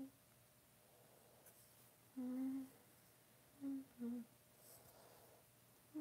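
A woman humming softly to herself in a few short, separate notes: one longer note about two seconds in, then two brief ones near four seconds, the last slightly lower.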